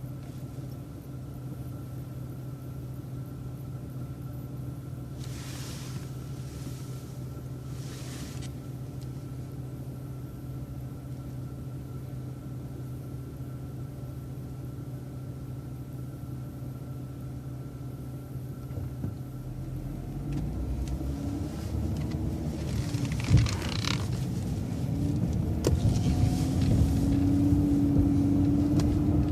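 City bus engine idling steadily while stopped at a traffic light, then pulling away about twenty seconds in, the engine growing louder and its pitch rising as the bus accelerates through the turn.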